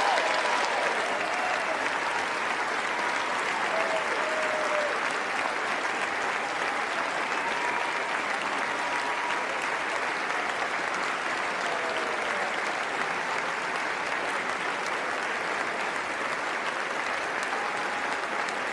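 A large audience applauding steadily in a sustained ovation.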